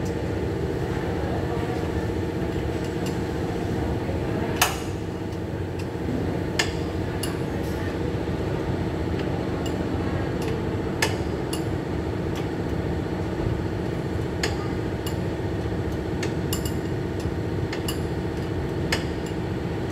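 A handful of sharp metal clinks and knocks from tools and brake parts being handled at a car's front brake caliper, the loudest a few seconds in. Under them runs a steady workshop hum.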